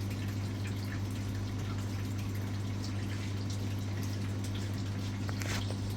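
Aquarium tanks' filtration running: water trickling and dripping over a steady low hum from the pumps.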